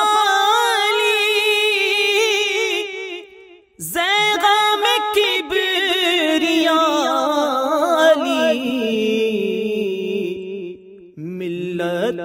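A singer performing an Urdu manqabat in praise of Imam Ali, drawing out long ornamented notes with a wavering pitch, without distinct words. The voice breaks off briefly about four seconds in, then carries on, and breaks again just before the end.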